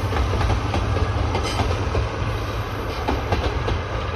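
The Okuizumo Orochi trolley train, loco-hauled coaches and open trolley cars, rolling past at speed. Its wheels click and clack over rail joints above a steady low rumble.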